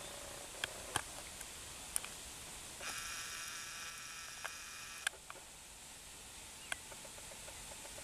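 Outdoor ambience: a steady hiss with scattered short, sharp clicks, and a buzzy trill lasting about two seconds from about three seconds in.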